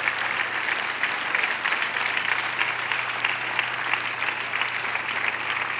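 Congregation applauding steadily, a dense, even clapping.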